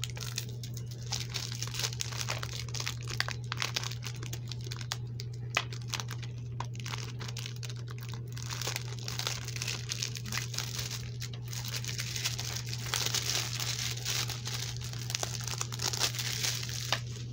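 Plastic shrink wrap being torn and peeled off a new DVD case by hand: a long run of irregular crinkling and crackling with small sharp snaps. It is thickest about nine and thirteen seconds in.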